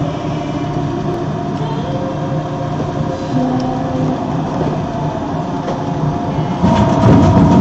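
Industrial twin-shaft shredder's cutter shafts turning empty, a steady mechanical grind with wavering tones. Near the end it gets louder, with crackling and crunching, as plastic-packaged watches and pins fall into the cutters.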